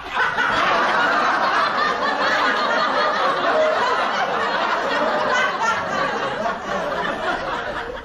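Sitcom laugh track: a crowd of many people laughing together, holding steady and dying away at the very end.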